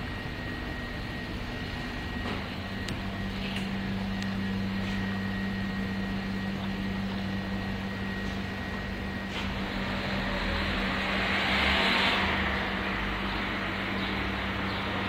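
Steady electrical hum of refrigerated vending machines, with a low hum setting in about two seconds in. Around ten seconds in, a rushing noise swells and fades again over about three seconds.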